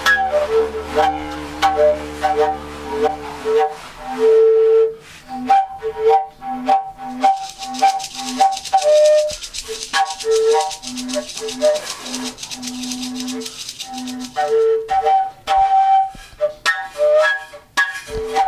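A bamboo flute playing a melody of short separate notes, with a low droning tone under the first few seconds. A rattle shakes through the middle of the passage.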